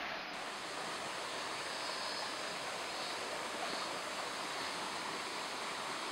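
Shallow mountain stream rushing over rocks in small rapids: a steady, even rush of water.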